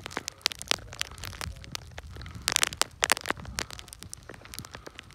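Skiing down through deep snow: irregular sharp crunches and clicks of skis and poles in the snow, thickest about halfway through, over a steady low rumble of wind on the microphone.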